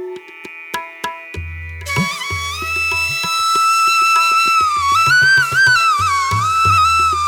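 Background music: a held, gently bending melody line comes in about two seconds in, over a regular beat of percussion strikes and low bass notes.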